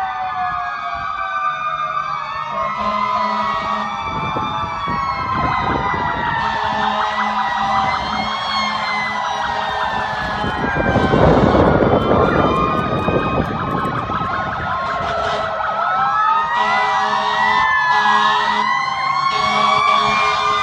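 Several fire-engine sirens wailing at once, their rising and falling pitches overlapping. The sound is loudest about eleven seconds in.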